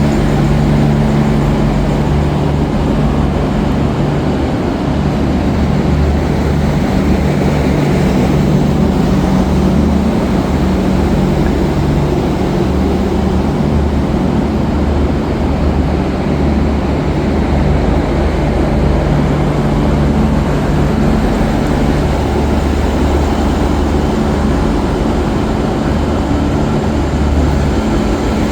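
Diesel train engine idling steadily at close range, a low even hum that does not change.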